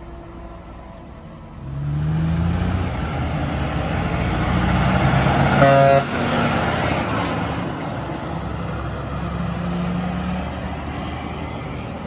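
Peterbilt 389 dump truck's diesel engine pulling past, its pitch rising as it accelerates, with one short blast from its pair of Hadley air horns a little past halfway. The engine sound then fades as the truck goes away.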